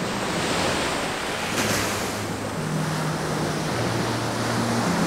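Rough surf washing onto a sandy beach, with wind on the microphone. About a second and a half in, soft background music with a slow bass line fades in under the waves.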